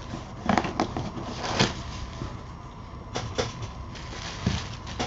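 A cardboard shipping box being cut open and its flaps pulled back: a handful of short scrapes, rustles and knocks of cardboard and tape.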